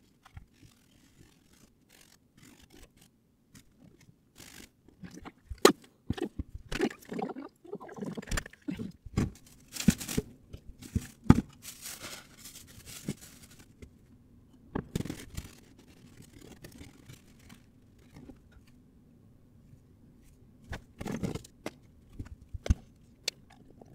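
Sped-up handling sounds of work on a coat: irregular scrapes, sharp clicks and short rustles, busiest through the middle and again near the end.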